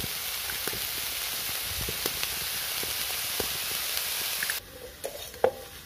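Spiced fig pieces frying in a wok: a steady sizzle with a few light clicks of a spoon against the pan. About four and a half seconds in the sizzle cuts off, and quieter, separate clinks and scrapes of a spatula against the wok follow.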